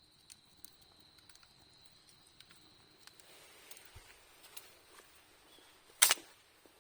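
Wood campfire crackling with scattered small ticks and one loud sharp pop about six seconds in. A faint steady high tone is heard during the first few seconds.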